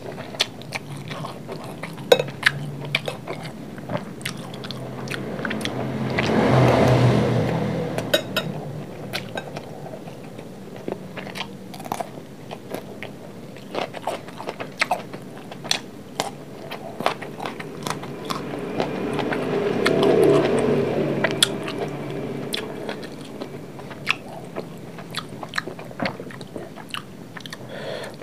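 Close-miked chewing of fried rice, with wet mouth sounds and many short, sharp crunchy clicks. Twice a broad swell of background noise builds for a few seconds and fades.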